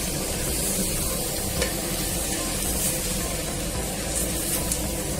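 Broken wheat (dalia) and chopped vegetables sizzling steadily in ghee in a pressure cooker pan while a spoon stirs them: the dalia is being roasted before the water goes in.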